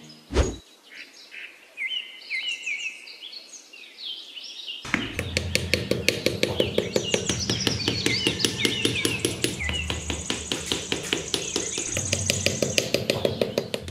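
Birds chirping and tweeting in a nature-sound track, after a brief sharp sound about half a second in. About five seconds in, a fast, even ticking rhythm with a low steady hum comes in under the birdsong.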